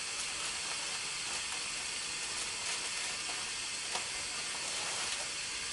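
Gas stovetop burners alight under a kettle and a pan: a steady hiss, with a few faint crinkles from a plastic tortilla bag being handled.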